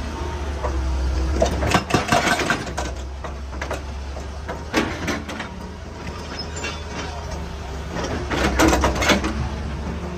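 Excavator's diesel engine running steadily under load, with bursts of knocking and clattering as rock is broken and moved, loudest about two seconds in and again near the end.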